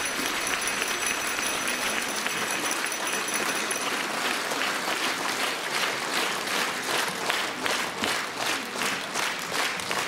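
Audience and performers applauding. About halfway through, the clapping falls into a steady rhythmic clap in unison.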